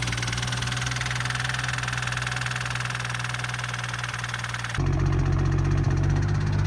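BMW N55 turbocharged inline-six engine running, in a clip that cuts about two thirds of the way through. Before the cut it carries a fast, even ticking over a light hum; after it, a louder low steady drone. The owner says this engine ran with a tick/knock after water ingestion bent its rods.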